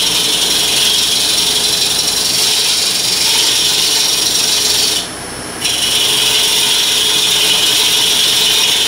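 A small gouge making push cuts on a spinning Bradford pear bowl blank on a wood lathe: a steady, loud hiss of shavings peeling off the wood. The cut breaks off for about half a second near the middle while the lathe keeps running underneath.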